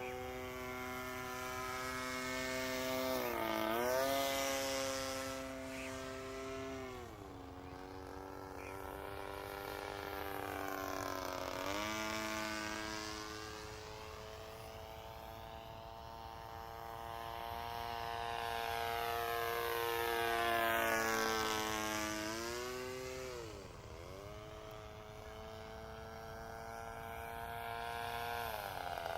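Model airplane engine buzzing in flight, its loudness swelling and fading as the plane circles. Its pitch drops sharply each time it passes, four times.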